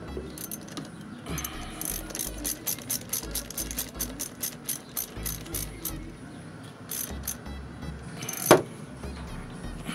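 Socket ratchet wrench clicking as it tightens the clamp bolt on a car battery's positive terminal: a quick run of clicks, about four a second, then a few more. A single sharp metallic knock near the end is the loudest sound.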